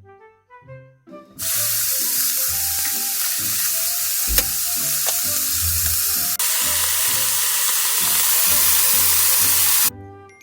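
Food sizzling in a hot frying pan, a loud steady hiss that starts suddenly about a second and a half in and cuts off suddenly near the end, over light background music.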